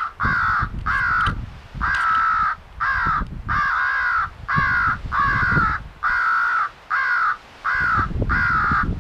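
Crow call sounding a steady run of about a dozen harsh crow caws, each under a second with short gaps between, used to call in crows.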